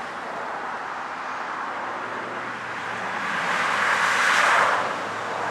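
Road traffic passing at a crossing, with a low steady engine hum from an approaching diesel freight train; the noise swells as a vehicle goes by about four seconds in.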